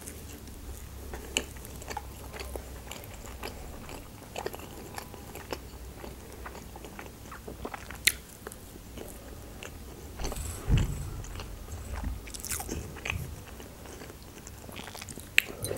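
Close-miked eating sounds: biting and chewing pieces of lavash roll, with small wet mouth clicks and smacks throughout. A louder dull bump about eleven seconds in.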